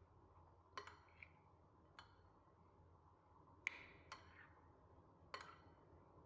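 Kitchenware clinking and tapping: about six sharp, irregularly spaced clinks and knocks, each ringing briefly, the loudest a little past the middle.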